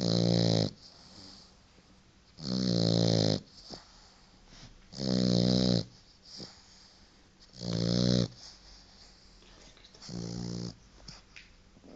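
Four-month-old French bulldog puppy snoring in its sleep: five snores about two and a half seconds apart, each under a second long, the last one weaker.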